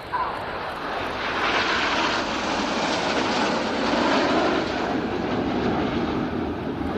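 Jet noise from the Red Arrows' formation of seven BAE Hawk T1 trainers flying past. The rushing noise builds quickly, is loudest and brightest in the middle, then deepens as the jets pass.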